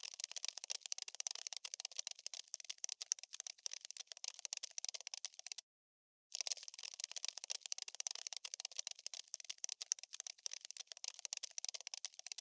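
Scurrying-insect sound effect: a dense patter of tiny fast clicks and scratches, thin and hissy with no low end. It cuts out completely for about half a second near the middle and then starts again, as a looped clip does.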